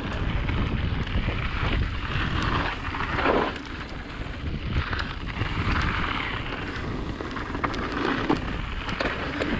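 Mountain bike rolling fast down a packed-dirt trail: wind buffeting the microphone over a steady low rumble of knobby tyres on dirt and loose gravel, with scattered clicks and rattles.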